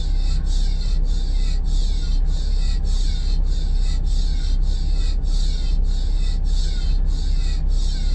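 Air-resistance exercise stepper worked at a steady pace: a rasping swish that falls in pitch with each step, about three every two seconds, over a steady low rumble.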